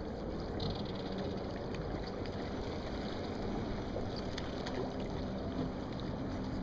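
Steady hiss and low rumble of water and wind around a small fishing boat on a lake, with a few faint ticks and a low hum coming in about four and a half seconds in.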